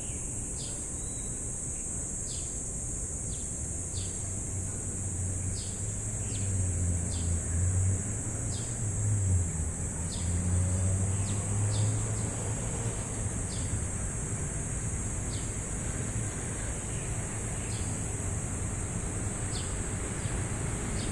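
Crickets trill in a steady, high, unbroken drone. Over it a bird gives short, sharp chirps about once a second. A low rumble of passing traffic swells in the middle and fades again.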